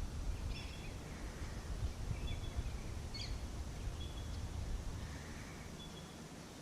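Outdoor ambience: a steady low rumble of wind noise with a handful of short, faint bird chirps scattered through it.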